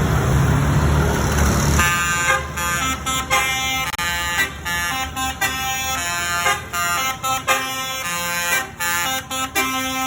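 Telolet basuri bus horn playing a quick tune of short, changing notes, starting about two seconds in after a low engine and road rumble from the bus.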